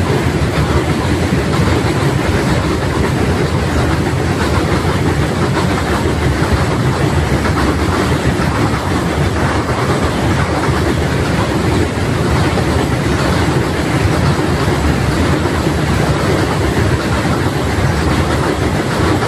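Goods train of boxcar wagons crossing a steel truss railway bridge overhead: the steady, loud noise of the wagons rolling over the bridge.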